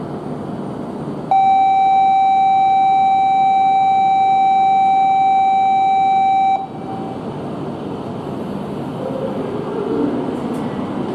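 Shinkansen platform departure buzzer: one steady electronic beep held for about five seconds, which then cuts off suddenly. It sounds over the low rumble of the E5-series train at the platform, and the rumble grows near the end as the train begins to pull away.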